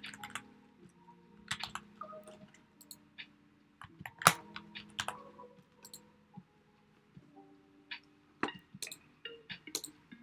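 Typing on a computer keyboard: irregular keystrokes and clicks, the loudest about four seconds in, over soft background music with held notes.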